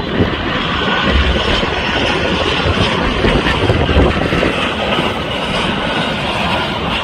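Engines of a twin-engine jet, the Boeing 757 (C-32) flying as Air Force One, running loud and steady as it passes low on its landing approach, a deep rumble under a broad hiss.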